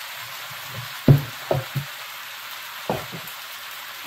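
Linguine and shrimp sizzling in a hot electric skillet: a steady hiss. A plastic spatula knocks against the pan a few times, three close together a little past a second in and one more near three seconds.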